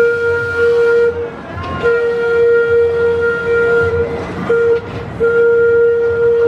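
Arrow mine train roller coaster running through curving steel track, with a steady high squeal that breaks off briefly a few times, typical of the train's wheels grinding through the curves, over a low rumble from the train.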